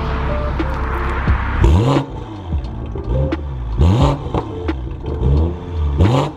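2021 BMW M340i's turbocharged 3.0-litre inline-six, breathing through a catless downpipe, revving. It holds a steady note for about the first second and a half, then gives three quick blips about two seconds apart, each rising and falling sharply.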